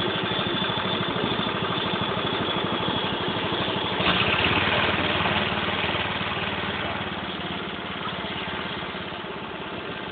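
Small 380 cc petrol engine of a home-built series-hybrid generator set running steadily with a rapid, even chugging. It gets louder about four seconds in, then eases off over the next few seconds.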